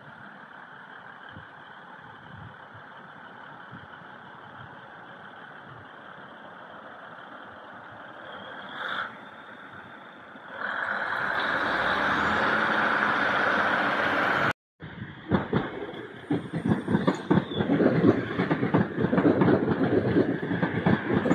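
Multiple-unit passenger train running past on a nearby track. A faint steady rumble gives way about ten seconds in to a louder rushing sound as the train draws near. After a brief dropout, the wheels clatter rapidly over the rail joints as it passes close, the loudest part.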